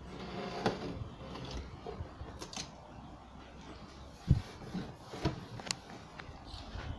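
Paper rustling and crinkling as it is pressed and smoothed by hand against the back panel of a wooden bookcase, with scattered light taps and clicks and one louder thump about four seconds in.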